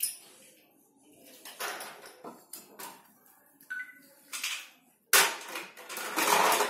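Plastic toys being handled: light clicks and knocks of small plastic pieces, then a louder stretch of scraping and rustling about five seconds in.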